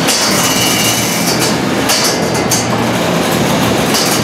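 Two small combat robots rattling and scraping against each other and the arena floor, over a steady low hum. Sharper, hissing scrapes flare up a few times.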